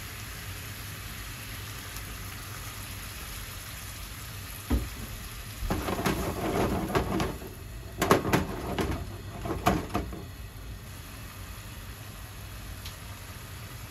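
Onion-and-garlic sauce sizzling steadily in a frying pan. About six seconds in, red wine is poured into the hot pan and the sizzle swells loudly for a second or two. Several sharp knocks and clatters follow as the pan is jostled on the stove grate.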